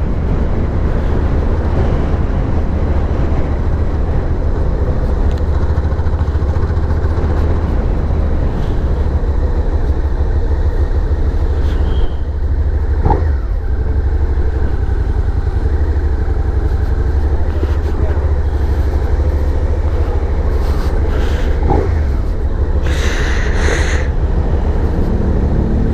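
Suzuki SV650's 645cc V-twin engine running steadily under way, a dense low rumble, with a brief dip about halfway through.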